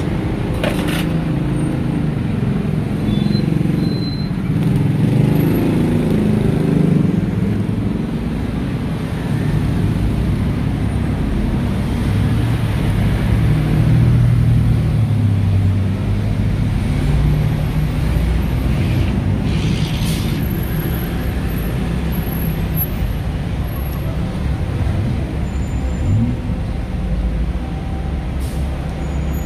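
Road traffic: vehicle engines running and passing in a steady low rumble that swells and fades, with a few sharp clicks of metal.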